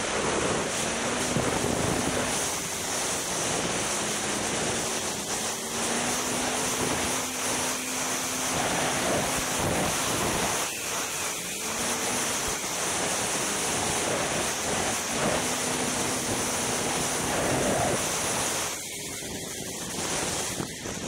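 Polaris Rush Pro-R two-stroke snowmobile running along at speed, its engine note rising and falling under heavy wind rush on the microphone. The wind noise eases near the end.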